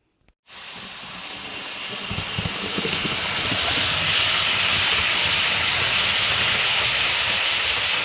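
OO gauge model GNER HST running along the layout's track, a steady rushing rumble of wheels and motor that grows louder over the first few seconds as the train comes closer, then holds steady.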